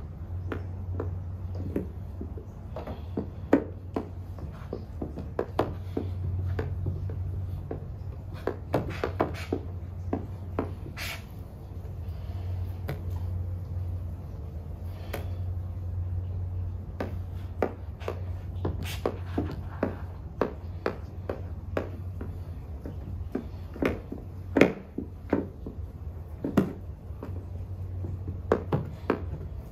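Plastic squeegee working wet paint protection film onto a car headlight: irregular scrapes and clicks, with a few louder knocks about 24 and 26 seconds in, over a steady low hum.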